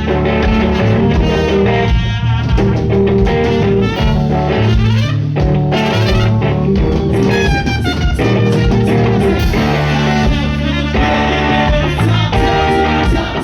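Live band music with guitar prominent, playing steadily without transcribed vocals; some notes bend in pitch midway through.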